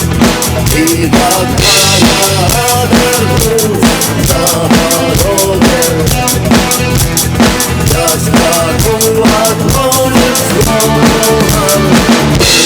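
Drum kit played along with a rock song's backing track: a steady kick-and-snare beat under a wavering melodic line, with a cymbal crash about two seconds in and another near the end.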